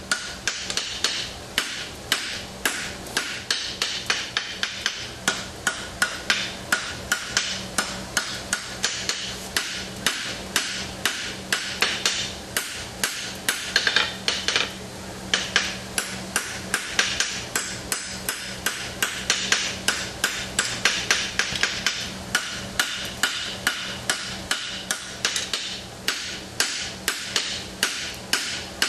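Blacksmith's hand hammer striking red-hot steel on an anvil in a steady run of blows, a couple a second, with a short break about halfway through, forging the jaw and offset of a pair of tongs.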